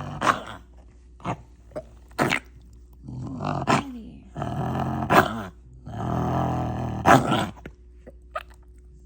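A dog wheezing and coughing: long rasping wheezes broken by sharp hacking coughs, repeated several times, quieter near the end.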